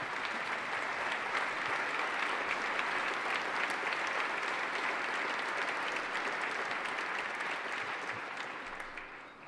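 Large audience in a legislative chamber applauding steadily, the clapping dying away near the end.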